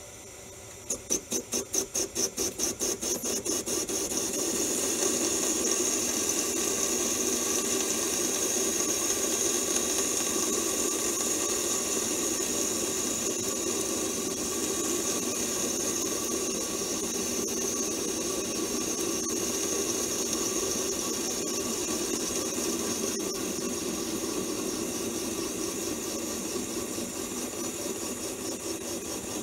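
Manual lathe cutting a convex radius on a spinning bar as the tool is fed in by hand: the cut starts about a second in as a pulsing chatter of about five a second, then settles into continuous cutting with a steady high-pitched ring, easing off slightly near the end.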